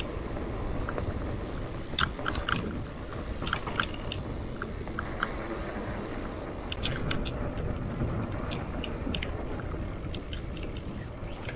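Mountain bike rolling over dirt and concrete trail: a steady rumble of tyres on the ground, with scattered clicks and rattles from the bike.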